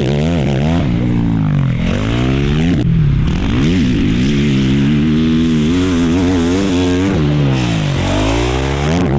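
Race quad's engine being ridden hard around a motocross track, revving up and dropping back again and again with the throttle and gear changes, with a steadier stretch of high revs in the middle.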